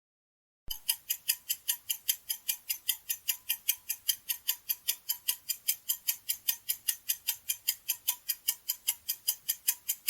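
Clock-ticking sound effect, a fast, even run of sharp ticks at about four or five a second, starting about a second in after a brief silence: a quiz countdown timer.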